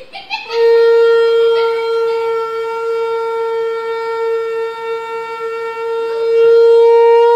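Conch shell (shankh) blown in one long, steady, horn-like note, which swells louder just before it ends.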